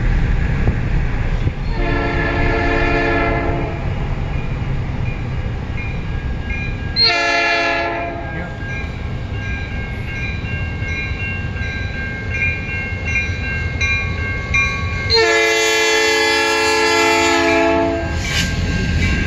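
Diesel freight locomotive's horn sounding for a road crossing: a long blast, a short blast, then a long blast of about three seconds. Between the blasts a crossing signal bell rings steadily over a low rumble, heard from inside a car.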